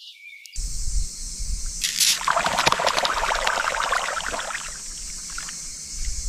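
Water splashing and sloshing, loudest in a burst of quick splashes lasting about two seconds that starts about two seconds in, over a steady hiss.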